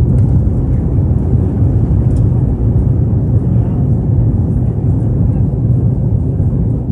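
Airbus A321's jet engines at takeoff power, heard inside the passenger cabin as a loud, steady low rumble.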